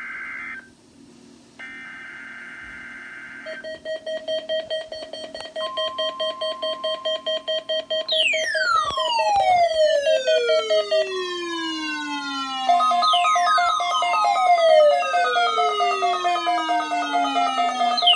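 Emergency Alert System test tones. It opens with two short bursts of harsh SAME data-header screech, then an electronic alarm: a rapidly pulsing tone, joined from about eight seconds in by repeated long falling siren-like sweeps that overlap one another. A steady weather-radio alert tone sounds faintly beneath at times.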